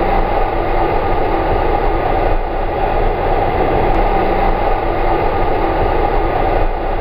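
Steady rush of wind and motorcycle noise at highway speed, picked up by a camera riding on a motorcycle, with no distinct engine pitch.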